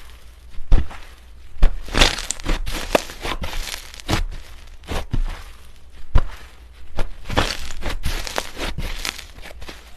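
Slime being squeezed and worked by hand, making irregular sharp pops and short rustling, crackling bursts, a few each second.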